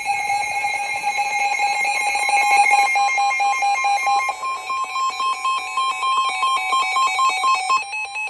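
Electronic emergency-alert tones ahead of a weather warning. A buzzy held tone gives way, about halfway through, to a rapid switching between two pitches about three times a second, and ends on a held higher tone.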